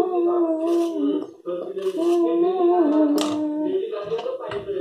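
A child's voice humming a Hindi song melody in long held notes, with short breaks between phrases.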